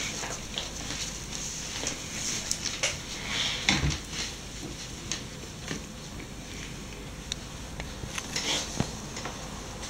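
Small clicks and taps of a paintbrush being worked over newspaper on a cluttered table, over a steady hiss, with one heavier knock just before four seconds in.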